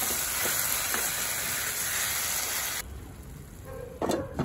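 Onion-tomato masala sizzling in a nonstick kadhai as it is stirred with a wooden spoon; the sizzle cuts off suddenly a little under three seconds in. Near the end a glass lid knocks onto the pan twice.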